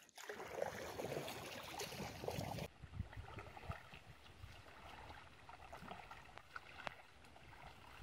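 Faint splashing and trickling of kayak paddles working river water. It is louder for the first two and a half seconds, then drops suddenly to a quieter wash with a few light splashes.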